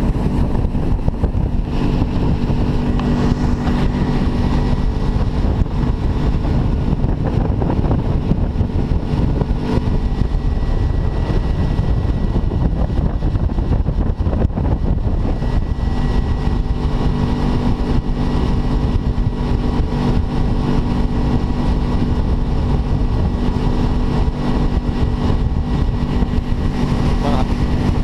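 Motorboat engine running steadily while the boat is underway, a constant hum that eases slightly in the middle and comes back stronger after about two-thirds of the way through.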